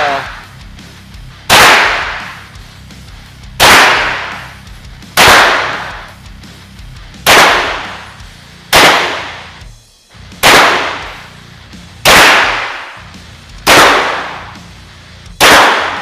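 Suppressed FN 509 Tactical 9mm pistol firing 115-grain FMJ rounds, which are supersonic rather than subsonic, in slow deliberate fire. Nine sharp shots come about one every one and a half to two seconds, each trailing off over about a second.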